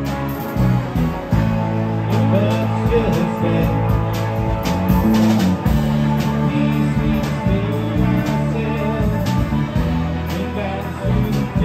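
Live rock band playing: electric guitars over sustained electric bass notes and a drum kit keeping a steady beat.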